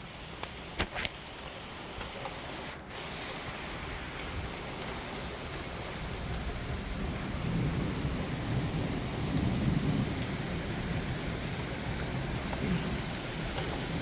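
Heavy thunderstorm rain pouring steadily, with a low rumble of thunder swelling about halfway through as the storm intensifies.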